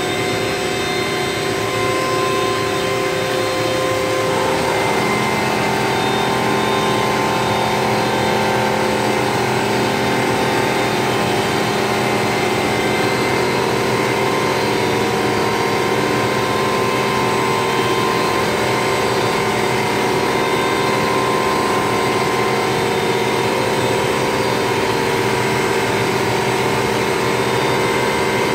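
Oce Arizona UV flatbed printer running while it prints on an aluminum panel: a steady mechanical whir with several held tones over a hiss. A new set of tones comes in about five seconds in.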